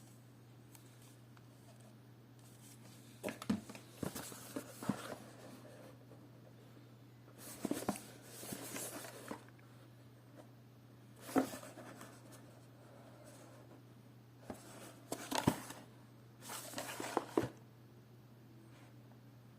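Scattered bursts of handling noise, rustles, clicks and light knocks, in several short groups over a faint steady low hum.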